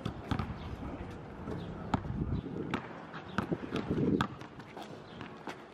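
A basketball dribbled on an asphalt court, with sharp thuds at uneven intervals and the scuffing footsteps of players running.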